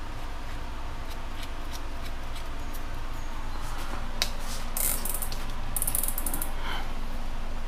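Keyless chuck of a Makita cordless drill being twisted tight by hand on a drill bit, with scattered handling clicks and two short bursts of rapid ratcheting clicks about five and six seconds in.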